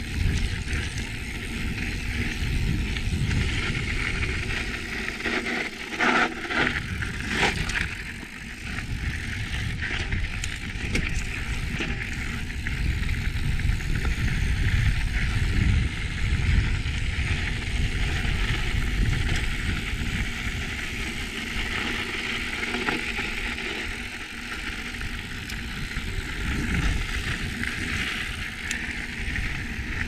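Mountain bike rolling along a dirt trail: a steady, uneven rush of tyre and wind noise, with a short burst of rattles and knocks about six seconds in.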